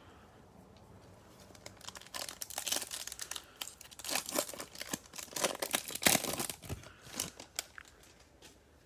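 Foil baseball card pack wrapper being torn open and crinkled by hand, a run of sharp crackles starting about two seconds in and dying away near the end.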